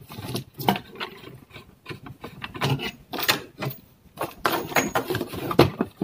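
Plastic cover of a Panasonic multipoint electric water heater being handled, opened and lifted off by hand: irregular clicks, knocks and scraping of plastic.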